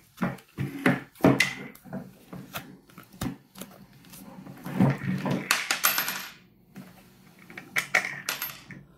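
Hard plastic housing of a portable jump starter knocking and clicking as its back cover is pried loose and lifted off, with a longer scraping rustle about five seconds in.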